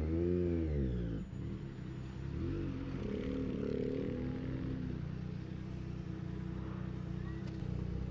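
Triumph Street Triple 765 RS inline three-cylinder engine, through a Racefit Growler full exhaust, revving up and back down in the first second, rising and falling again more gently about three seconds in, then running steadily at low revs.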